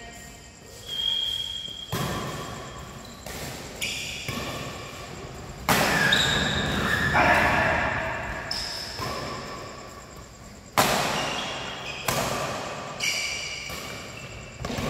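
Badminton rally in a large hall: sharp racket strikes on the shuttlecock, about seven in all at irregular intervals of one to five seconds, each ringing briefly in the hall, the loudest about six and eleven seconds in. Short high squeaks come between the strikes.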